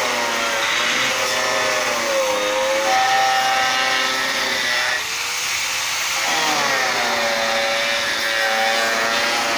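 Angle grinder with a cutting disc running and cutting into wood, its high whine sagging in pitch as the disc bites and picking back up as it frees, with a deeper dip about five seconds in.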